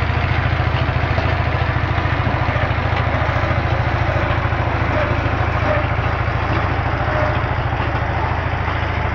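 Small engine of a walk-behind push lawn mower running steadily, with a fast, even low throb.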